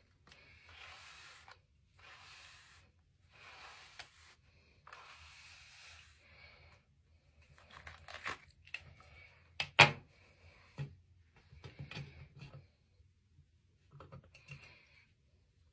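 Bristle hairbrush drawn through long straight hair four times, each stroke a swish of about a second. After that, small clicks and taps of the brush being handled, with one sharp click about ten seconds in, the loudest sound.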